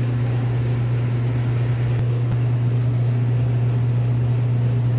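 A loud, steady low machine hum that does not change, like a motor or fan running.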